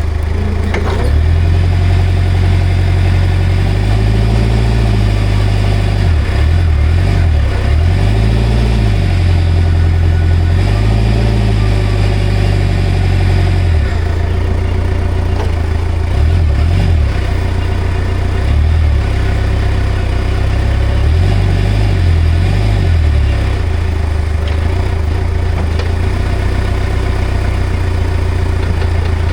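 Komatsu 30 forklift engine running steadily, its note rising and falling about half a dozen times as it is revved or loaded while the newly installed hydraulic main pump is tested.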